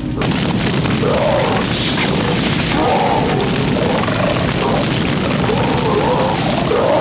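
Large forest fire burning: a loud, dense, steady rush of noise, with music playing over it.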